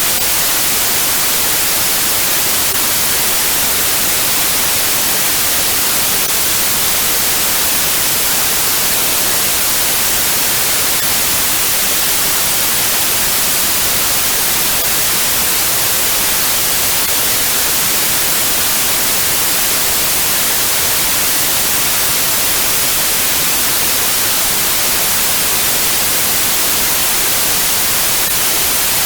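Steady white noise: a constant, even hiss, strongest in the treble, that never changes.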